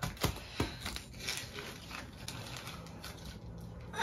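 Two sharp clicks in the first second, then faint rustling and light scraping as small objects are handled.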